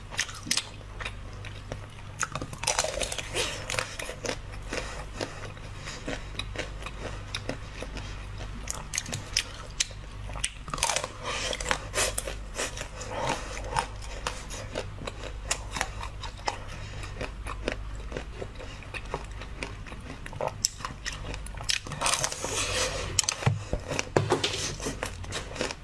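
Close-up biting and chewing of a frozen purple grape-bunch-shaped treat, its hard outside cracking into crisp crunches. The crunching comes in clusters, about three seconds in, around eleven to thirteen seconds, and again near the end, with quieter chewing between them.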